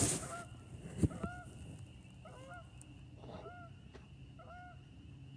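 Canada geese honking, a run of short calls about one or two a second. A sharp knock about a second in is the loudest sound.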